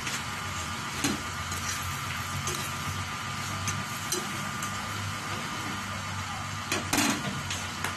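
Green beans and ground meat sizzling in a stainless steel skillet over a low steady hum, with a utensil scraping and knocking against the pan as the food is stirred. The sharpest knocks come about a second in and around seven seconds.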